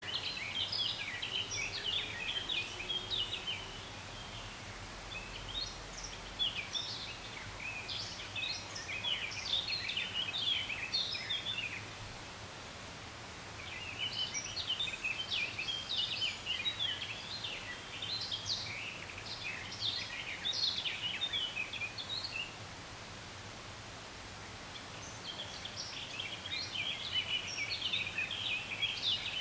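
A songbird singing long runs of rapid, jumbled notes in four bouts of several seconds each, with short pauses between them, over a steady faint outdoor hiss.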